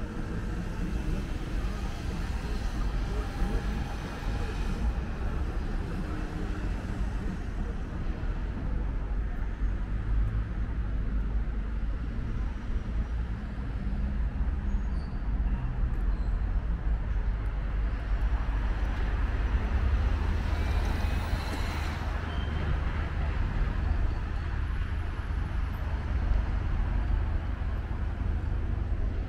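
City street ambience: a steady rumble of road traffic, with one vehicle passing closer about two-thirds of the way through.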